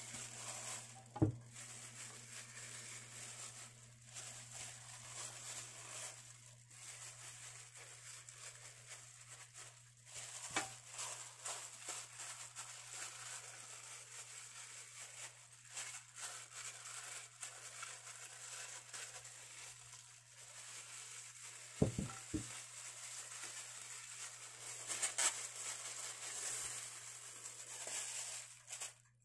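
Clear plastic food-prep glove crinkling and rustling as a hand rubs wet chopped marinade over a raw whole chicken, with a few sharp taps, two close together past the middle.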